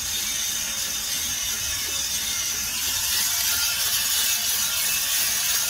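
Kaldi Wide 400 coffee roaster running early in a roast, with green beans tumbling in its motor-driven drum: a steady mechanical whirr and rattle over an even hiss.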